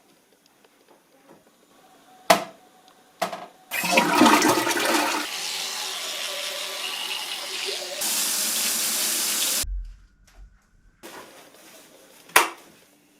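Toilet flushing: a couple of sharp clicks, then a loud rush of water lasting about six seconds that changes character partway through and cuts off abruptly.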